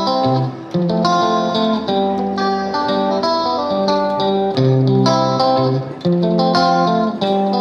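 Background music: plucked guitar playing a melody with chords.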